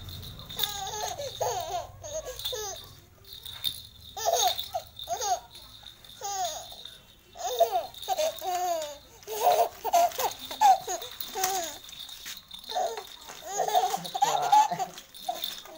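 A toddler laughing and babbling in short, high-pitched bursts with brief pauses between.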